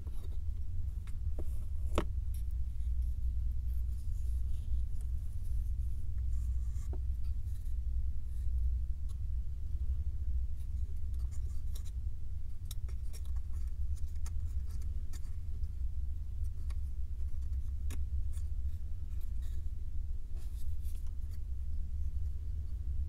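Hands handling and fitting small 3D puzzle pieces: light scratching and rubbing with scattered soft clicks, and a sharper click about two seconds in, over a steady low rumble.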